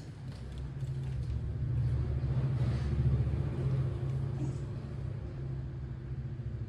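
Low engine rumble of a passing motor vehicle, building to its loudest about three seconds in and then fading.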